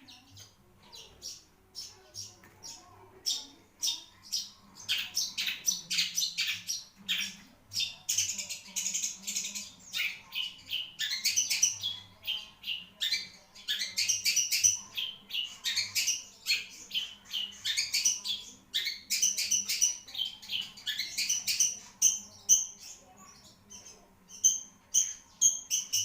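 Long-tailed shrike (cendet) singing a long, near-unbroken run of rapid, varied high chirps and trills.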